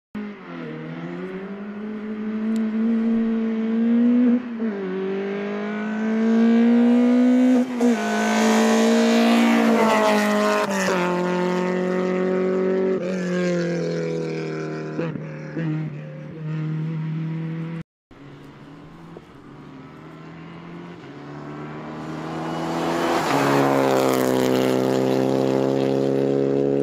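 Rally car engines at full throttle. One car accelerates hard through the gears, its pitch climbing and dropping back at each upshift. After a sudden cut, a second rally car approaches and passes, growing loud near the end.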